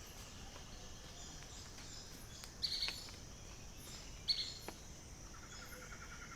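Wild birds calling against a steady high background hiss: two short, sharp calls, one about two and a half seconds in and one about four seconds in, then a rapid, even trill starting near the end.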